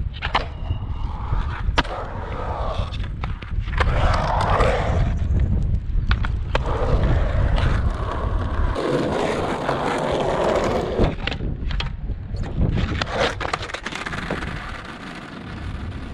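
Skateboard wheels rolling over a concrete bowl, rising and fading as the board carves, with several sharp clacks of the board against the concrete. Wind buffets the microphone until about two-thirds of the way through.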